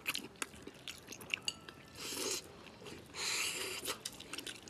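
A person chewing and biting on a braised chicken head: wet mouth sounds with many small sharp clicks, and two longer hissing sounds about two and three seconds in.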